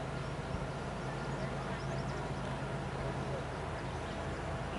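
Outdoor ambience with a steady low engine-like hum and birds chirping faintly.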